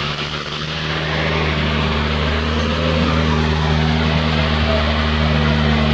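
Powertrac Euro 60 tractor's diesel engine running hard at a steady pitch, pulling a disc harrow through soft sand. It grows a little louder after the first second.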